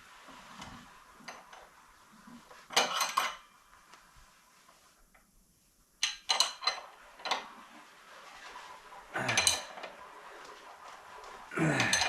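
Metal hand tools clinking and clicking in about five short bursts as the refitted front wheel of a motorcycle is tightened down.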